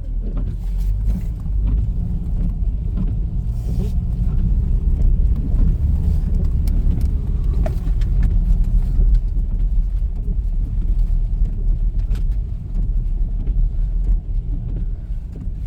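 Subaru Impreza driving, a steady low rumble of engine and road noise.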